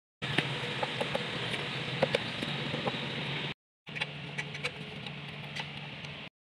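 A steady mechanical hum with light clicks and taps scattered through it, broken by two short silent gaps.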